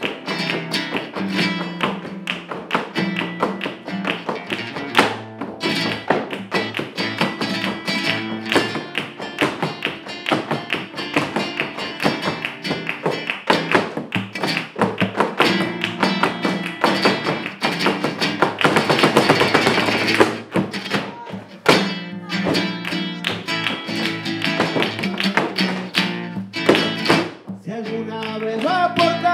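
Live flamenco: nylon-string flamenco guitar playing under the dancers' zapateado footwork, their shoe heels and soles striking the wooden floor, along with hand-clapping (palmas). About two-thirds of the way through the footwork breaks into a fast, dense run of strikes.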